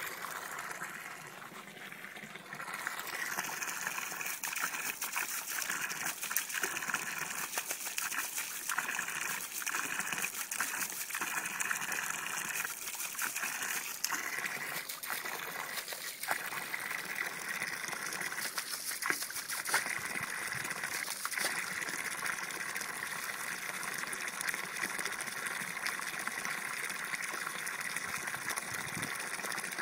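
Water from a garden hose pouring into a plastic paddling pool: a steady splashing gush, louder from about two seconds in.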